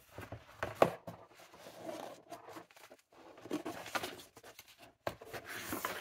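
Paper packaging rustling and crinkling as items are unpacked from a box, in short irregular bursts, with a sharp click a little under a second in.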